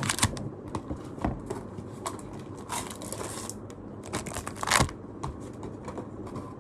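Items being taken out of a cardboard merchandise box by hand: scattered taps and knocks of card and plastic pieces, with a crinkling rustle about three seconds in and a sharper knock near five seconds.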